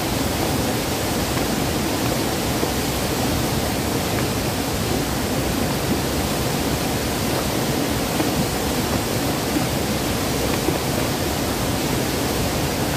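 Fast-flowing river water rushing steadily over rocks in a small cascade, a loud even roar of white water close by.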